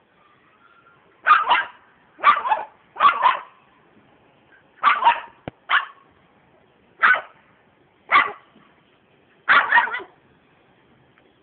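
A white fluffy dog barking at a rooster: about a dozen short, sharp barks, many in quick pairs, with pauses of a second or so between bouts.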